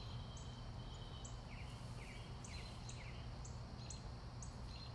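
Outdoor garden ambience: birds calling, with a short high chirp repeating about twice a second and a few quick sweeping calls near the middle, over a low steady hum.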